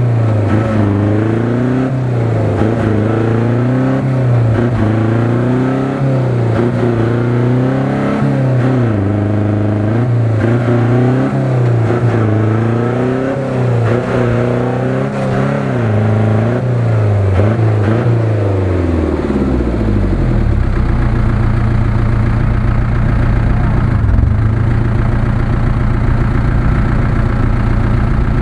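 UAZ-469 engine revved up and down over and over, about every one and a half to two seconds, while the jeep is bogged in deep mud. About two-thirds of the way through the revs die away and the engine settles to a steady idle.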